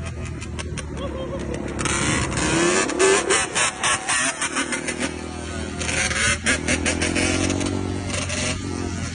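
Yamaha Banshee 350's twin-cylinder two-stroke engine being revved: a steady idle, then a rising rev about two seconds in followed by a string of quick throttle blips with sharp cracks, and another rev near six seconds.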